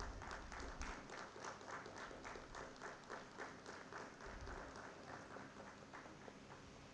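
Faint applause: hands clapping at a steady rhythm, about three claps a second, dying away shortly before the end.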